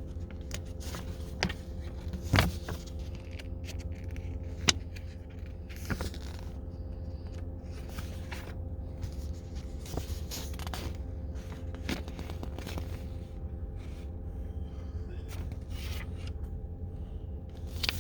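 Steady low hum inside a car cabin, with scattered clicks, scrapes and rustles of things being handled; the sharpest knock comes about two and a half seconds in.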